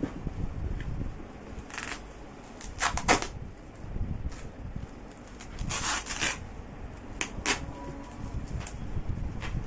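Packaging being handled during an unboxing: several short bursts of rustling and crinkling, over a low steady rumble.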